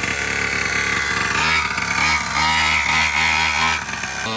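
Small two-stroke gasoline engine of a large-scale RC monster truck running at idle. About a second and a half in, the throttle is blipped in a quick run of short revs, about four a second.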